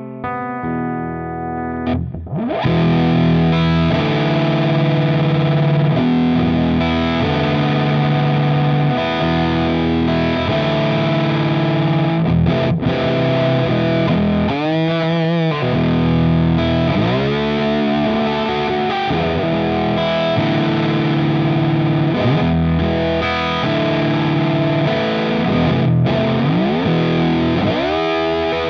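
Electric slide guitar played through a ThorpyFX Fallout Cloud fuzz pedal: distorted, sustained notes with sliding pitch glides and wide slide vibrato. After a quieter start, the full fuzz tone comes in about two seconds in.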